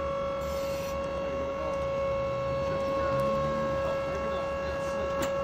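Forklift running with a steady, unchanging whine and a low hum underneath.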